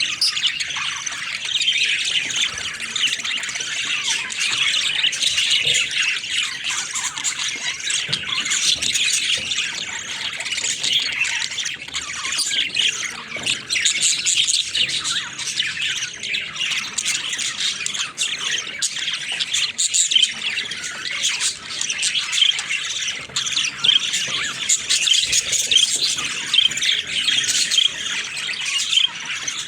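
A flock of budgerigars chattering and squawking, many birds calling over one another without a break.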